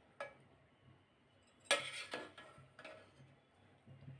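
Steel serving spoon scraping and knocking against the side of a metal cooking pot as cooked biryani rice is stirred, a handful of short scrapes with the loudest just under two seconds in.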